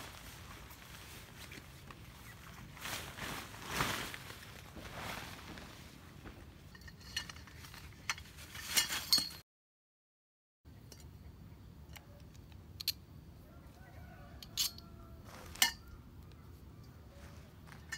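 Tent fabric rustling and swishing as it is shaken out and spread, then scattered sharp clinks and clicks as the tent poles and their bag are handled. A second of dead silence falls about halfway through.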